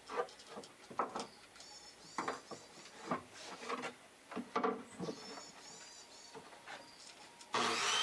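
Wood being worked by hand: irregular scraping and knocking strokes on timber. Near the end a loud, steady power tool starts up.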